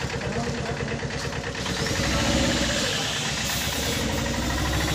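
Small mini-truck's engine idling steadily with an even, fast low pulsing.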